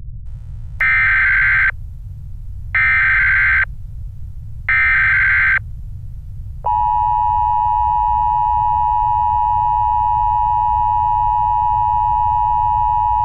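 Emergency Alert System signal: three bursts of SAME header data tones, each just under a second long and about two seconds apart. Then, about six and a half seconds in, the steady two-tone EAS attention signal starts and holds. A low rumble runs underneath.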